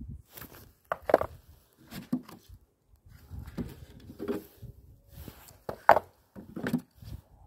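Wooden beehive frames and hive box parts knocking and clunking as they are handled, a series of short, irregular knocks with quiet gaps between.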